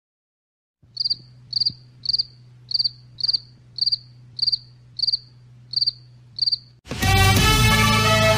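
Cricket chirping in an even rhythm, about two chirps a second, over a faint steady low hum, starting about a second in. Loud music comes in near the end and covers it.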